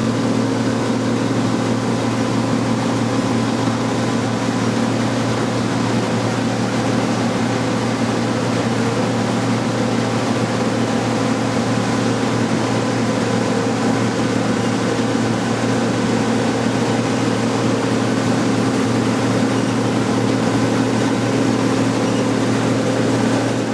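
John Deere C670 combine harvester running steadily while harvesting rice: an even machine drone with a strong low hum and a few held tones, unchanging throughout.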